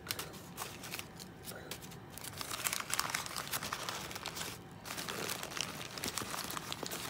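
Crumpled newspaper packing crinkling and rustling in irregular bursts as a hand pulls it out of a shipping box.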